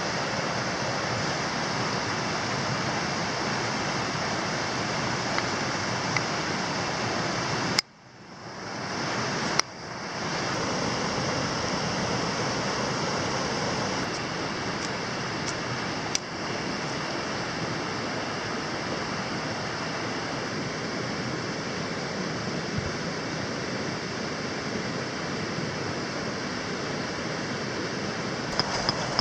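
Steady rushing of flowing water, like a stream. It cuts out abruptly about eight seconds in and returns within a couple of seconds, with a few faint clicks.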